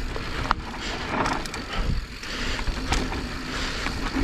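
Mountain bike riding down a loose, slippery dirt trail: steady tyre and wind noise, with scattered sharp clicks and knocks from the bike rattling over the ground.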